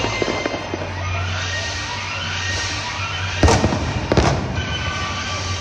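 Aerial fireworks going off over music: crackling near the start, then two loud bangs about three and a half and four seconds in.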